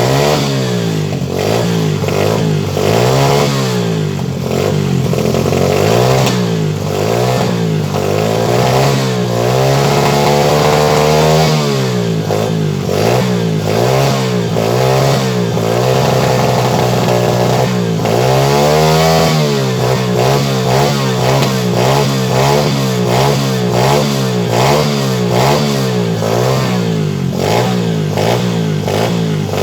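KXF 125cc pit bike's single-cylinder four-stroke engine being revved repeatedly in quick blips, about one a second, with two longer revs held high about ten and eighteen seconds in.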